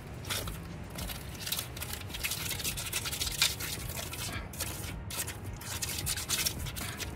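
Small steel trowel scraping and spreading wet cement mortar over a brick base, in quick, irregular strokes.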